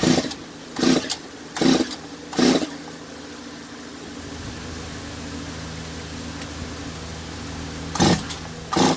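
Stihl 024 AV two-stroke chainsaw being pull-started with the choke set: four quick yanks of the recoil starter rope about a second apart, a pause of several seconds, then two more pulls near the end.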